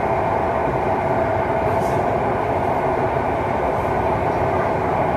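Steady running noise of a BEML-built Mumbai Metro train moving between stations, heard from inside the car: an even rumble with a hum.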